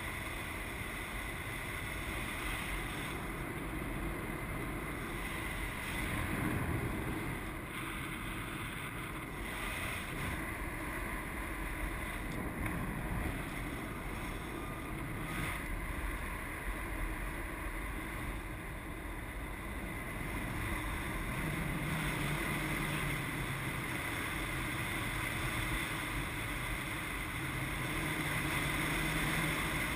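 Wind rushing over the microphone of a paraglider in flight: a steady noisy rush that swells and eases a little.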